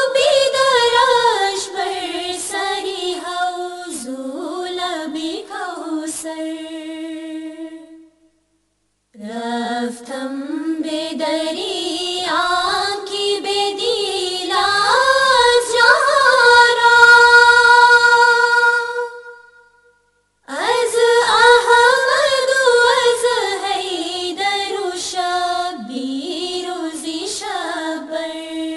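A single voice singing a Farsi ginan, an Ismaili devotional hymn, unaccompanied. It comes in three long melodic phrases, each ending on a held note, with two short full pauses between them.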